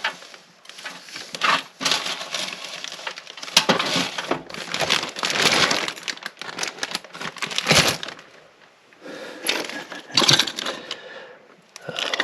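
Small metal tools and parts clattering and rattling as they are rummaged through and shoved around on a cluttered workbench, in irregular bursts of clicks and knocks with a couple of short lulls.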